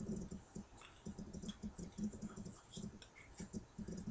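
Light, irregular clicks and handling noise of cardboard and plastic packaging pieces being fitted together by hand.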